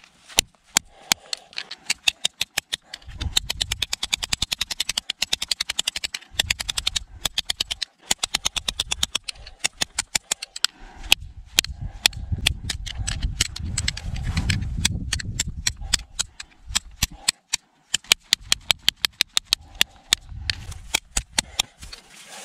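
Steel tip of a Cold Steel SR1 tanto folding knife (CPM S35VN) striking a stone block over and over in a tip test: rapid sharp clicks, several a second, with a low rumble at times.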